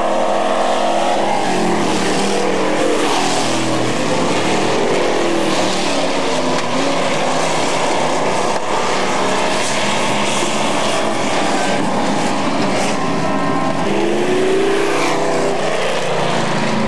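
A pack of dirt-track super trucks (pickup-bodied race trucks) racing, several engines running at once, their pitches rising and falling as the trucks go by and through the turns.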